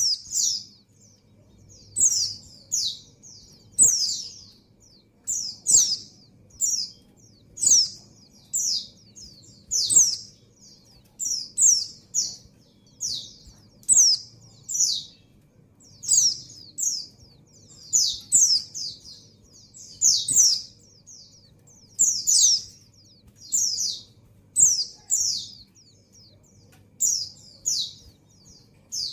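Female white-eye (pleci) in breeding condition calling for a male. It gives short, high, downward-slurred chirps in quick groups of two or three, repeated about every one to two seconds.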